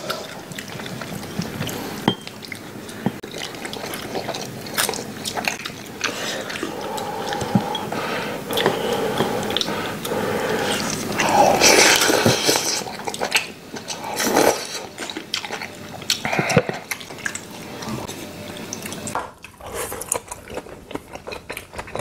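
Close-miked eating: chewing and biting with wet mouth noises and short sharp clicks of chopsticks and a spoon, with a louder wet stretch of chewing or slurping about halfway through.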